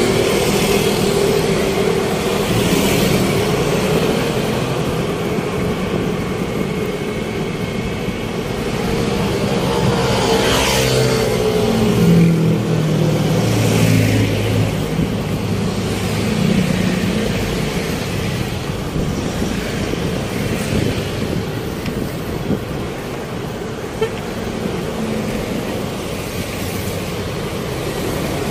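City road traffic: motor vehicles running and passing close by, one with a falling engine note about ten seconds in.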